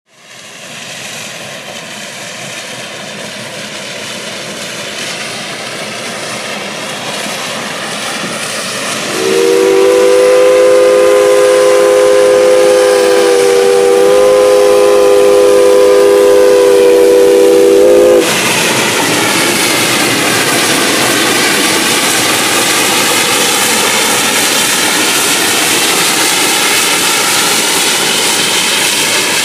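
Alberta Prairie Railway No. 41, a Baldwin 2-8-0 steam locomotive, approaches with a growing rumble, then sounds its chime whistle in one long blast of several notes lasting about nine seconds. When the whistle cuts off, the passenger coaches roll past with a steady rushing rumble.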